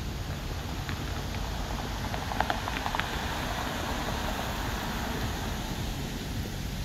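City street ambience: a steady low rumble and hiss like distant traffic, with a few short clacks about a second in and a small cluster of them near the middle.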